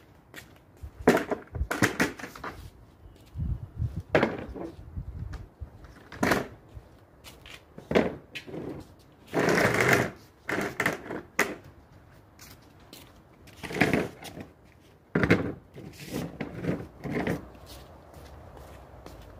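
Stacked white plastic patio chairs knocking together and scraping on stone paving as they are pulled apart and set down, in irregular clatters with one longer scrape about halfway through.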